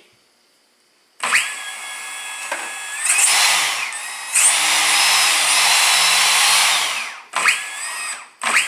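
Makita DUC400Z cordless chainsaw's brushless outer-rotor motor spinning up on the variable-speed trigger about a second in. It rises to full speed with a high whine, holds for a few seconds and winds down, followed by two short trigger blips near the end.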